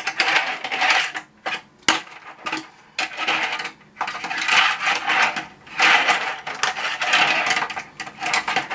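Tech Deck fingerboard wheels rolling back and forth over a plastic pipeline ramp, a series of rolling passes about a second each, broken by sharp clacks of the board against the plastic.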